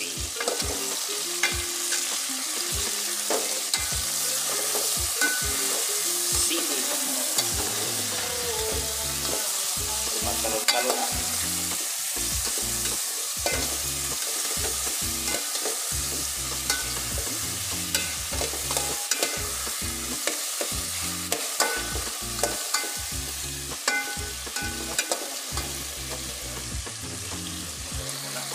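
Chicken wings with onion, tomato and green chili sizzling in a metal pot while a metal ladle stirs them, clinking and scraping against the pot many times.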